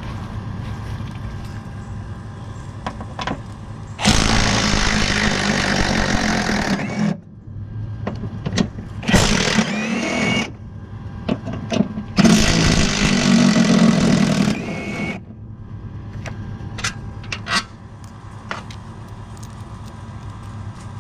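A power tool runs in three bursts of two to three seconds each, backing out the three bolts that hold a riding-mower blade spindle to the deck. The middle burst has a rising whine. Between the bursts come light metallic clicks and clatter of handling.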